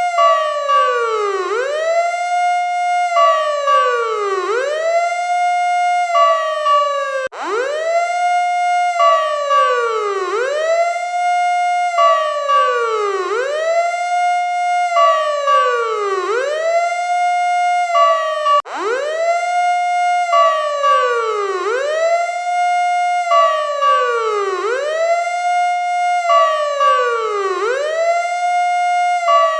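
Electronic emergency siren sounding a fast repeating cycle: the pitch shoots up, holds briefly, then falls away, about once every second and a half, with a steady higher tone between sweeps. It cuts off abruptly twice and restarts at once.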